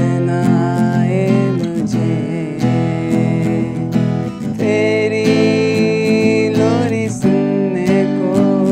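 A man singing a song to strummed acoustic guitar.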